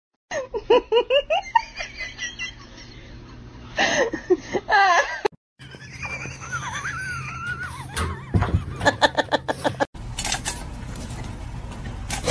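A person laughing hard in quick repeated bursts, then laughing again a few seconds later. A steady hiss comes in near the end.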